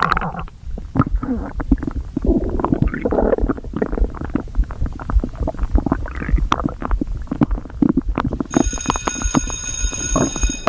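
Human stomach growling and gurgling: an unbroken run of irregular bubbling rumbles and small pops, from a stomach full after overeating. About eight and a half seconds in, a steady high-pitched whine joins in.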